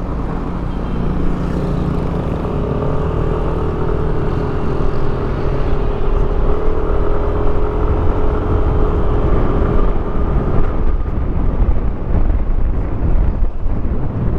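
Yamaha NMAX scooter's single-cylinder engine running as it pulls away and rides along, heard from the rider's seat with a low road and wind rumble; a steady whine from the scooter drops away about ten seconds in.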